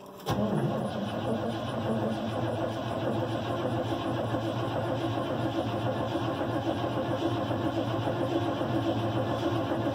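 1978 GMC Suburban's engine cranked by the starter on a 12-degree cold start without the choke, turning over steadily and evenly for about ten seconds without catching. It is strong cranking from a good battery, with no fuel yet drawn up to the carburetor.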